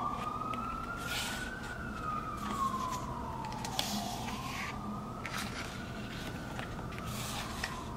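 An emergency-vehicle siren wailing, its pitch sweeping slowly up and down twice, with a few soft paper rustles as a photo-book page is handled.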